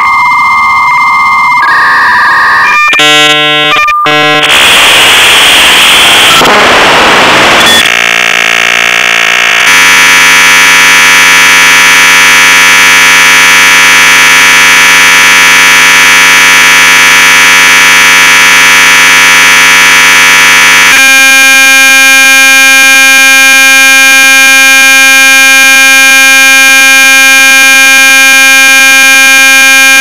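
Dial-up modem connecting: a long, high, steady beep from the answering modem, then a few seconds of changing tones and static hiss. From about ten seconds in comes a loud, steady buzzing hiss, which turns rougher and buzzier about twenty-one seconds in.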